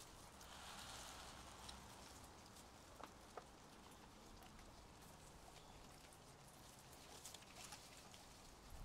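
Near silence with faint scuffling and a couple of light clicks about three seconds in: guinea pigs moving about.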